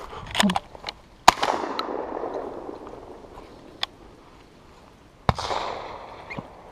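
Two shotgun shots about four seconds apart, each followed by a rolling echo that fades over a second or more; the first, about a second in, is the louder. Brief rustling from handling the gun comes just before the first shot.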